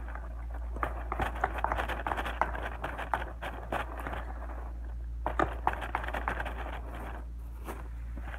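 Slime mixture being kneaded and squished by hand in a plastic tub: a dense, uneven run of small sticky clicks, crackles and scrapes.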